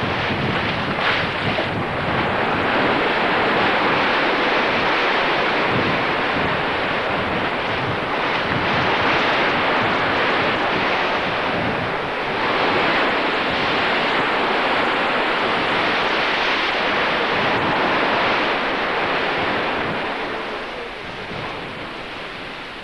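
Sea surf washing and rushing, swelling and ebbing, with wind, fading away over the last few seconds.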